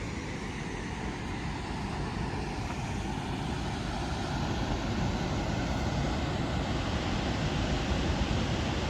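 Steady rushing roar of a large waterfall, growing gradually louder.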